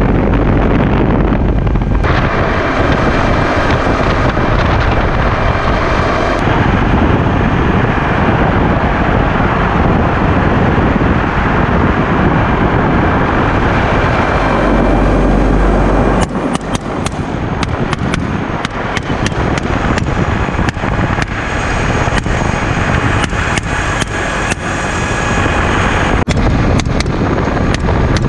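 Helicopter in flight: a loud, steady rush of rotor and engine noise with heavy wind buffeting on the microphone. From about halfway on, it is broken by a quick run of sharp cracks, rifle shots fired from the aircraft.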